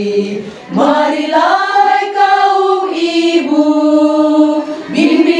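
Women's choir singing in Indonesian: a held note fades out, and about a second in the voices start a new line on the word "Marilah" in long held notes.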